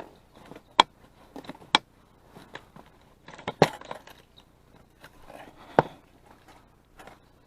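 Sharp clicks and knocks with light rustling and clatter as gear is handled, the four loudest knocks a little under a second, just under two seconds, about three and a half seconds and about six seconds in.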